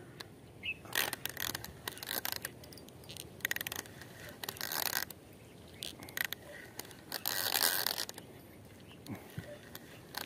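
Spinning reel being cranked in irregular spurts, its rotor and gears whirring and clicking as line is wound back in.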